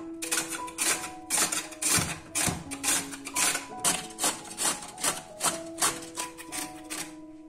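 A peeled raw potato rasped by hand down a stainless steel box grater, about two scraping strokes a second, growing softer near the end. Soft music with held notes plays underneath.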